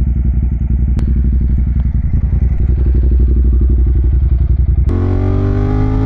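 Ducati Monster 1200's L-twin engine idling with an even, loping beat, with a sharp click about a second in. About five seconds in it is suddenly heard at higher revs, pitch rising slowly as the bike pulls away.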